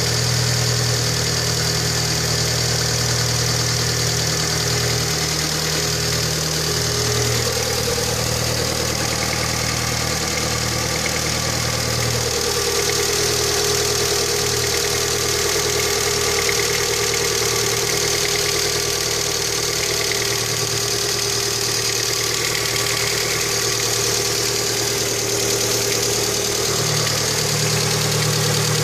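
Lada Kalina 1.5 engine idling steadily, with a knock that the owner is recording as a fault. Its low note shifts slightly a few times.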